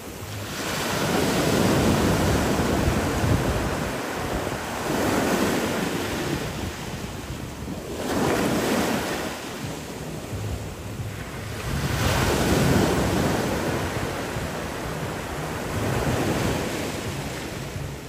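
Ocean waves breaking over rocks and washing into a cove: a continuous rush of surf that swells and eases about every three to four seconds, five surges in all.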